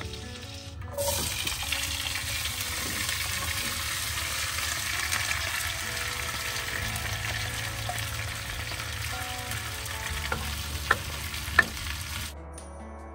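Diced red potatoes sizzling as they are tipped into a hot frying pan about a second in, then frying steadily. Two sharp clicks near the end come from a spatula against the pan as they are stirred, and the sizzle cuts off suddenly just before the end.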